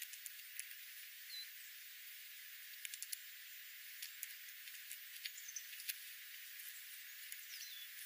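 Jays' beaks picking at and cracking seeds on gravel: irregular sharp clicks, bunched in the middle, over a steady hiss, with a few faint high chirps.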